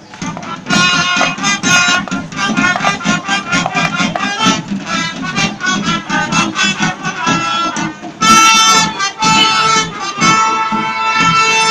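Accordion music: a quick melody of fast running notes, with a long held chord about eight seconds in and another from about ten seconds in.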